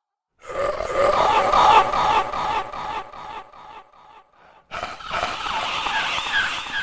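Scary sound effect: a rough, rattling growl starting about half a second in and fading out around four seconds, then a second burst near five seconds with a rapid, gobble-like warble pulsing about two or three times a second.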